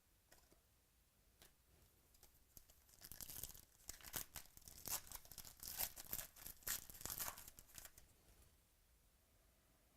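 Trading-card pack wrapper being torn open and crinkled by hand, a faint run of rips and crackles from about three seconds in to about eight seconds in.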